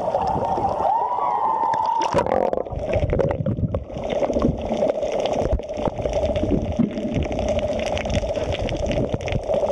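Seawater gurgling and sloshing around a camera as it goes under the surface, heard muffled and rumbling, with a steady hum underneath once it is submerged.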